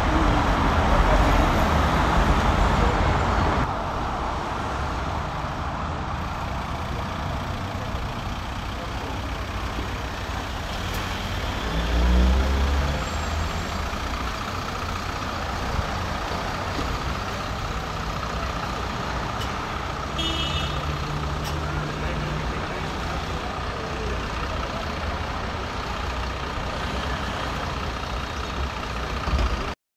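Busy city street traffic running steadily, louder for the first few seconds. About twelve seconds in, a bus passes close by with a low rumble.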